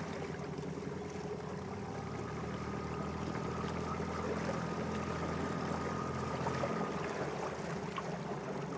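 Small fishing boat's outboard motor running steadily at a dead-slow troll, a low even hum with a faint higher whine that stops about seven seconds in.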